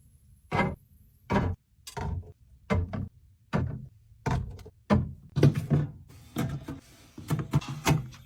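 Items being set down one after another on the shelves of a mini fridge while it is restocked: a string of clunks and knocks, roughly two a second, coming closer together in the second half.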